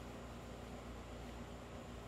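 Steady low background hiss with a faint low hum and a faint thin high whine: room tone, with no distinct event.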